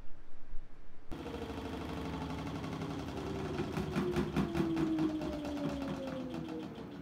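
Samsung ecobubble front-loading washing machine with a digital inverter motor running: a steady machine hum that starts abruptly about a second in, with a tone that slowly falls in pitch and a fast even clicking. A few light knocks come just before it.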